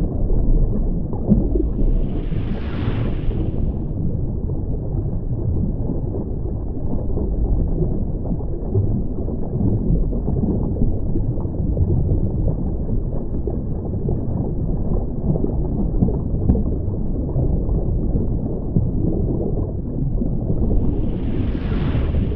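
Underwater ambience: a steady, muffled low rumble of water, with two brief brighter whooshes, one about two seconds in and one near the end.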